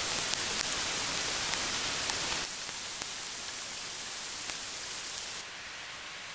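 Dense, steady hiss of rain falling in woodland, sped up eightfold so that it sounds like static. It steps down in loudness twice, about two and a half seconds in and again about five seconds in.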